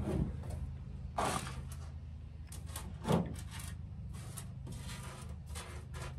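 Scattered light clicks and knocks of small RC-car parts, screws and a hex driver being set down and picked up on a work table, a few sharper than the rest, over a steady low hum.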